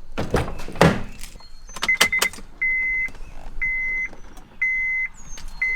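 A 2008-2012 Honda Accord's dashboard warning chime beeping steadily, about once a second, as the car fails to start on a dead battery. Two rustling noises open it, and a few quick clicks come about two seconds in.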